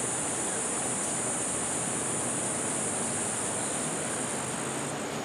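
Steady high-pitched insect drone, typical of cicadas in tropical forest, over an even rushing hiss like wind or distant surf; the drone shifts slightly near the end.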